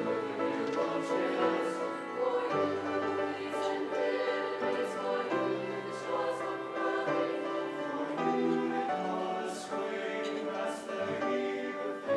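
A choir singing, holding sustained chords that change every second or two.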